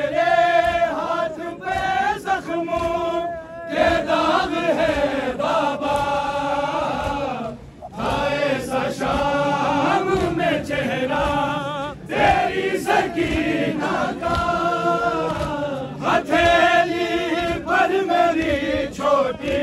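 Men's voices chanting a noha, a Shia mourning lament, in drawn-out wavering phrases about four seconds long with short breaths between them.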